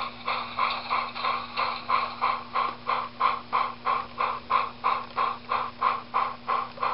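Model train rolling slowly along the track with a steady, even clicking, about three clicks a second.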